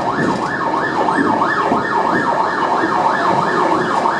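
Emergency vehicle siren in a fast yelp, its pitch sweeping rapidly up and down about three times a second, over steady street noise.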